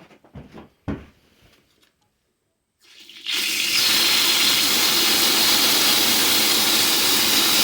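A few faint knocks, then water rushing out hard in a loud steady hiss that starts abruptly about three seconds in: water let out under pump pressure onto the floor from the newly plumbed well system.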